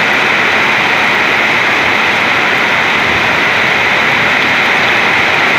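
Heavy rain pouring down in a loud, steady hiss with no letup.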